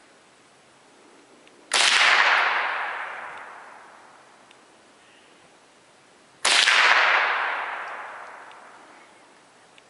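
Two shots from a Glenfield Model 60 semi-automatic .22 rifle, about five seconds apart. Each is a sharp crack that fades away over about two seconds.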